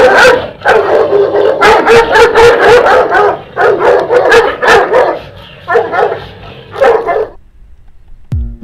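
Sarplaninac guardian dog barking hard in rapid, loud bursts, breaking off about seven seconds in.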